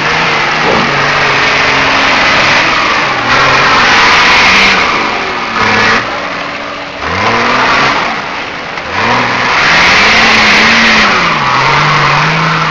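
Off-road 4x4's engine revved hard in repeated bursts under load on a steep muddy climb, its pitch rising and falling several times, with a long high-revving stretch near the end.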